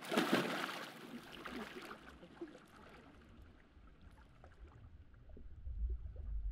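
A person slipping into a swimming pool with a splash, then water sloshing and lapping as it settles. A low rumble swells near the end.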